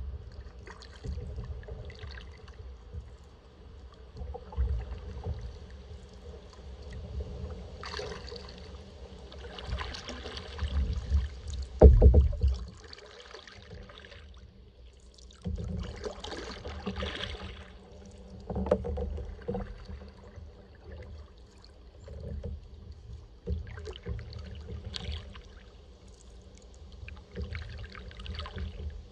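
Kayak paddle strokes swishing and splashing in calm water at an irregular pace, over a low rumble, with one sharp thump about twelve seconds in.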